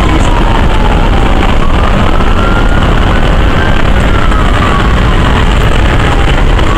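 Fire brigade rescue truck's wail siren, slowly rising and falling about once every five seconds, heard from inside the cab over loud engine and road noise as the truck drives.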